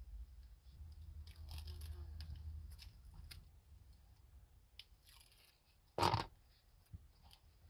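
Hands handling and trimming thin leather pieces on a cutting mat: soft rubbing and crinkling with scattered small clicks, and one short, louder rustle about six seconds in.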